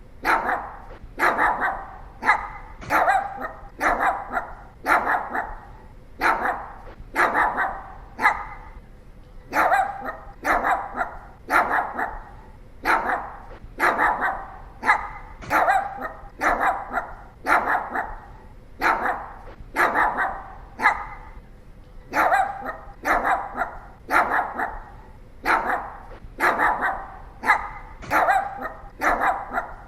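Pomeranian barking repeatedly: short, sharp barks roughly every half second to second, in runs broken by a few brief pauses.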